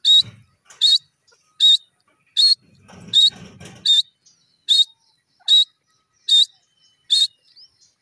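Grey francolin calling: a loud, short, high note, slightly rising, repeated at a steady pace about every 0.8 s, about ten times.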